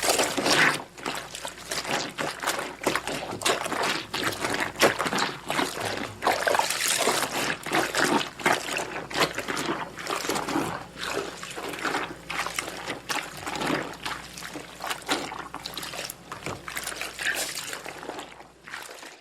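Clothes being washed by hand in water: wet fabric squelched and sloshed, with water trickling and splashing in uneven strokes. The sound cuts off suddenly at the very end.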